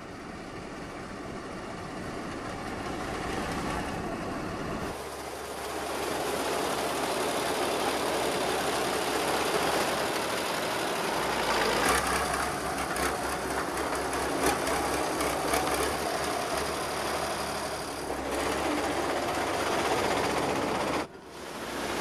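Heavy salt-harvesting train running on temporary rails: a steady mechanical rumble with clanking, louder from about five seconds in, and many sharp metallic knocks in the second half.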